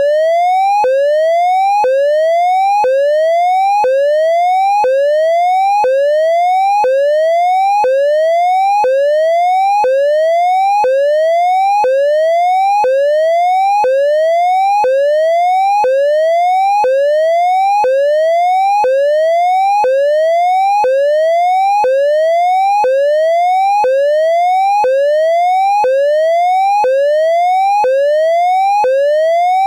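Synthesized triangle-wave siren tone imitating an ASC digital electronic siren controller's hazard signal: a loud, steady run of rising whoops, about one a second, each sweeping up in pitch and then snapping back down to start again.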